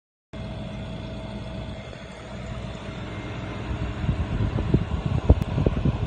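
Refrigerator compressor and condenser fan running in the machinery compartment of a 1990 GE Hotpoint top-freezer refrigerator: a steady hum with a faint steady tone. About four seconds in it turns louder and rougher, with uneven low rumbling and a few sharp knocks, as the fan's air reaches the microphone.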